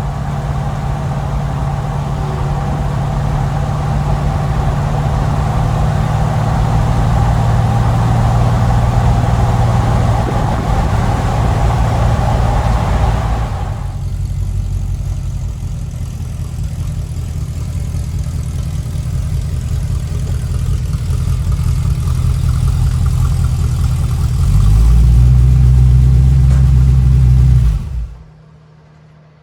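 350 small-block Chevy V8 running through freshly fitted glasspack mufflers, with a steady low exhaust note. About halfway through the higher sounds drop away, and near the end a deeper, louder drone holds for a few seconds before the sound cuts off suddenly.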